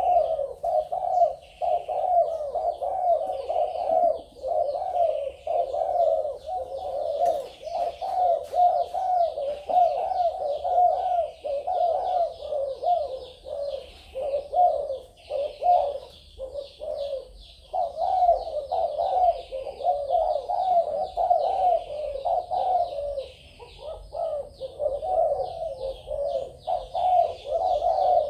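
Spotted doves cooing over and over, phrase after phrase, with a short break about sixteen seconds in. Faint, quick high chirping runs underneath.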